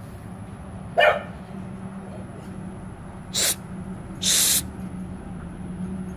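A dog barks once, short and loud, about a second in. Two brief hissing sounds follow a couple of seconds later.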